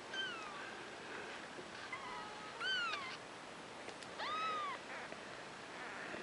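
Newborn kittens mewing: three high, thin cries that rise and fall in pitch, about every two seconds, the last one the longest.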